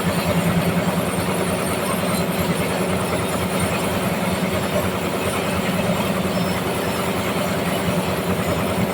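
Sawmill machinery running with a steady, unbroken hum.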